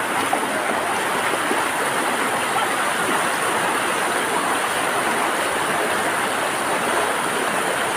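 Floodwater rushing steadily across a road and over its embankment.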